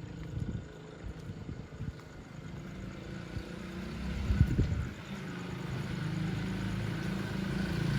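A motor vehicle's engine running, its steady hum growing louder toward the end as it approaches, over low rumbling and a few knocks from the handheld phone.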